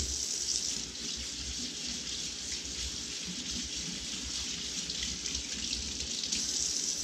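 Kitchen sink tap running steadily while hands are washed under it; it shuts off at the end.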